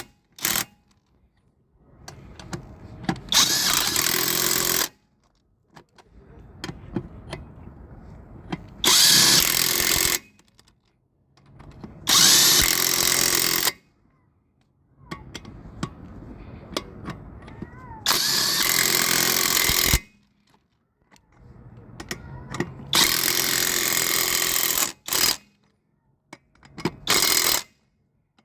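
Impact wrench hammering lug nuts onto a spare wheel in about six loud bursts of one to two seconds each, with quieter stretches between.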